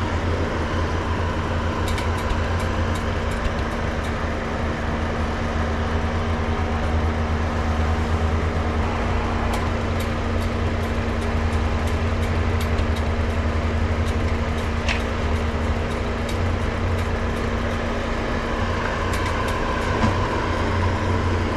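Farm tractor engine running steadily under load, with a constant hum and scattered light clicks and rattles over it.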